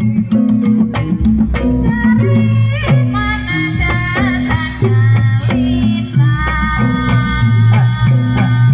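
Javanese gamelan ensemble playing a fast gending srampat for jaranan: regular drum and struck-metal strokes over sustained low notes that step in pitch, with a wavering melodic line entering about two seconds in.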